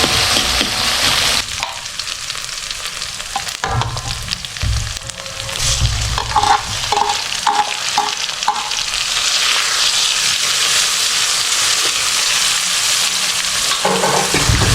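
Food sizzling as it fries in a pan while being stirred, with a steady hiss and a few short knocks of the utensil against the pan midway.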